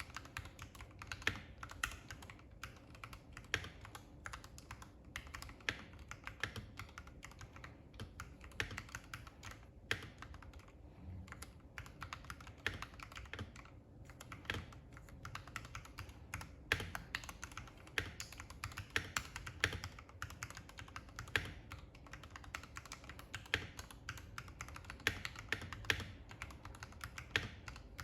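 Continuous typing on a custom mechanical keyboard with lubed Gateron Ink Yellow linear switches on an aluminium plate in a Tofu96 case, capped with MT3 Dasher keycaps: a fast, uneven run of keystrokes with a couple of short pauses near the middle.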